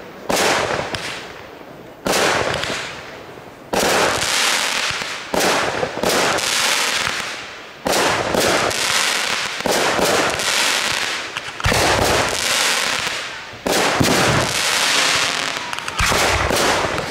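Fireworks firing in quick succession, a shot about every one to two seconds. Each is a sharp bang followed by a hiss that fades before the next shot.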